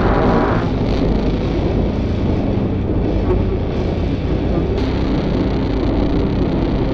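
Experimental sound-art piece: pitched notes cut off just after the start, leaving a loud, dense low rumble with faint steady tones. A low held tone comes in about five seconds in.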